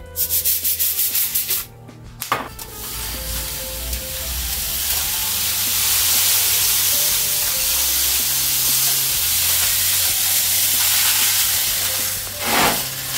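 Roasted sesame seeds pouring off a foil-lined baking tray into a glass jar: a steady hiss of falling grains that slowly grows louder, after a rapid clicking rattle in the first couple of seconds and before a short loud rustle near the end. Soft background music underneath.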